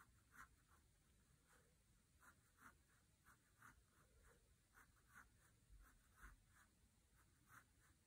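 Faint pencil strokes scratching on paper, short quick marks at about two or three a second, as small hatch lines are sketched in.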